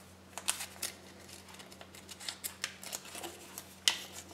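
A small packet of Kinder Surprise toy parts and its paper slip being handled and opened: light crinkling with short sharp clicks scattered throughout, the loudest a little under four seconds in.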